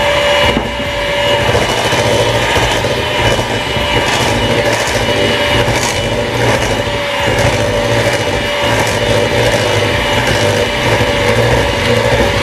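Electric hand mixer running steadily, its twin beaters churning thick butter cookie dough in a stainless steel bowl.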